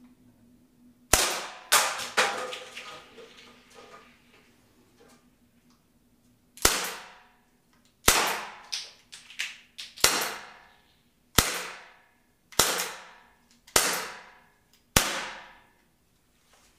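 Shots from a CO2-powered T4E Glock 17 Gen5 .43 calibre pistol firing aluminium balls: sharp cracks, each with a short ringing tail. First a quick pair about a second in, aimed at a drink can. Then, after a pause of several seconds, a steady string of seven shots about a second and a half apart.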